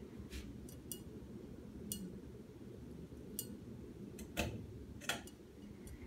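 Ceiling fan with a fluorescent light kit running, giving a steady low hum. Irregular sharp ticks sound over it, about nine in all, the loudest about four and a half and five seconds in.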